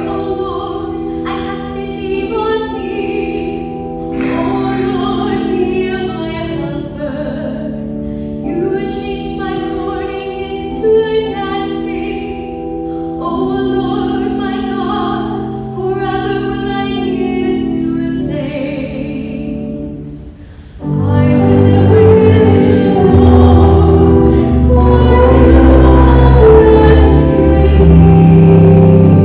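A sung church psalm: a cantor sings phrases over sustained keyboard chords. About two-thirds of the way through, the music suddenly becomes much louder and fuller, with heavy low notes.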